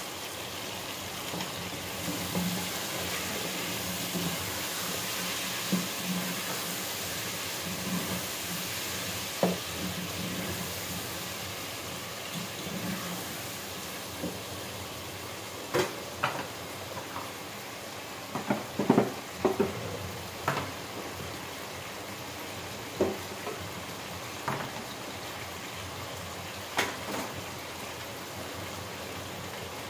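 Potatoes, onions and tomatoes frying in a pot with a steady sizzle, with a metal spoon stirring and scraping. In the second half there are a series of short sharp knocks and clicks.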